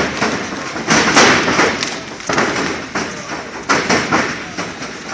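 Repeated heavy thuds and slams of wrestlers' bodies hitting the boards of a wrestling ring, irregularly spaced with a short echo after each.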